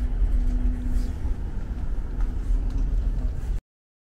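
Steady low rumble and hum of the passenger ship KM Lawit's machinery, heard inside a below-deck passenger hall. It cuts off suddenly near the end.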